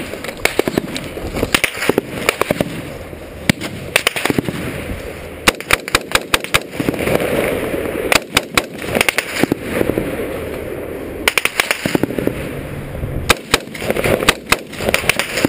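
Small-arms gunfire in a firefight: repeated short bursts of rapid shots and single shots, with a few seconds between bursts.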